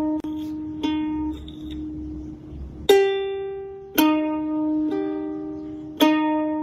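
Background music: slow plucked notes on a ukulele-like string instrument, about one each second, each ringing on and fading.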